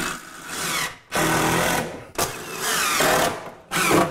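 Cordless drill driving cabinet screws, running in several short bursts with brief pauses between.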